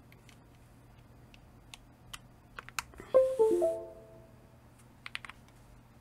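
Keystrokes on a Keychron V1 mechanical keyboard with MMD mint blue switches: a few scattered key presses, then a quick cluster of presses near the end. About three seconds in comes the loudest sound, a short electronic chime of tones stepping quickly down in pitch.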